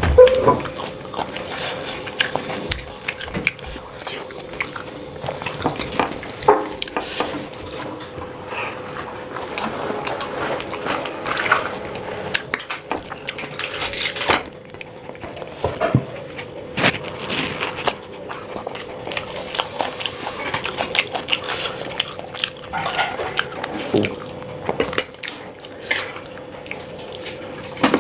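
Close-up eating sounds: fingers scraping and scooping rice on a stainless steel plate, with chewing and mouth sounds. The clicks and scrapes come irregularly over a faint steady hum.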